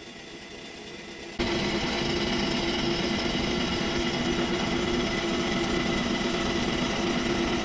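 CNC machine tool running while machining metal: a low, quieter machine hum, then about a second and a half in a louder steady machining noise with a held mid-pitched whine cuts in abruptly and keeps on.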